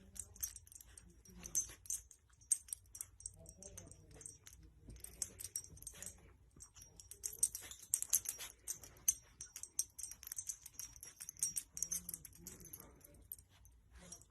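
A puppy moving about: a dense patter of quick faint clicks and jingling ticks, with soft short vocal sounds here and there.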